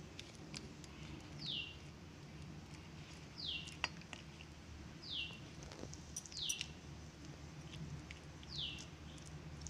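A bird calling with a short, quickly falling chirp, five times a second or two apart, over scattered light clicks and squelches of fingers rubbing masala paste onto fish on a steel plate.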